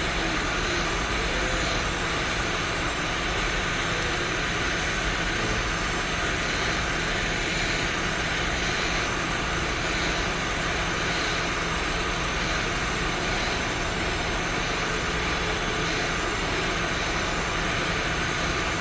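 Hot air rework station blowing a steady hiss of air onto a NAND flash chip on a phone logic board, heating it to reflow the solder beneath the chip.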